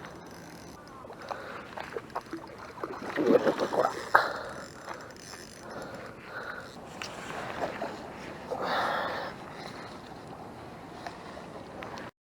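Water splashing and sloshing with scattered knocks and rustles, irregular throughout, with a busier cluster of knocks about three to four seconds in and another swell of splashing near nine seconds.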